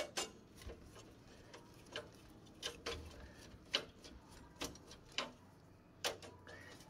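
About a dozen sharp, irregular clicks and taps from hands unfastening and handling parts inside a desktop PC case.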